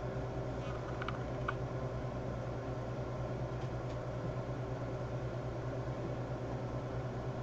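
Steady low hum over an even hiss, background room noise with no speech, with a few faint clicks about a second in.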